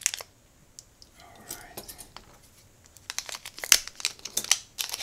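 A shiny metallised plastic bag being torn open and crumpled by hand. There is a short crackle at the start, a quiet stretch, then a quick run of sharp crinkling and tearing crackles through the last two seconds.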